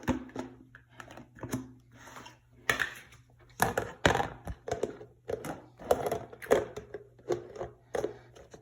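Irregular handling noises of slime containers and wrappings being put away: scattered clicks, taps and knocks mixed with crinkling.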